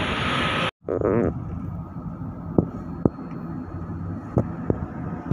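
Minibus cabin on the move: a steady engine and road hum with a few sharp rattles and knocks from the body. It is preceded by less than a second of loud roadside traffic noise that cuts off abruptly.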